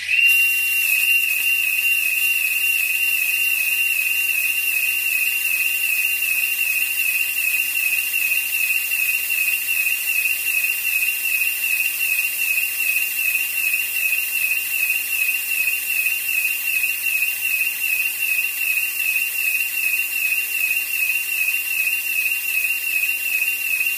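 A security smoke (fog) system set off: its alarm sounder gives a loud, high-pitched warbling tone over the steady hiss of the smoke generator discharging. Both start suddenly.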